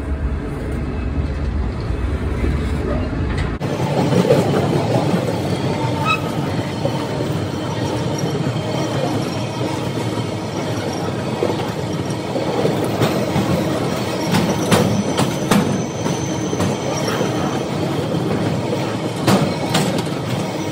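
Freight train wagons rolling past on the track: a steady rumble of steel wheels on rail with clicks over the rail joints and a thin wheel squeal at times.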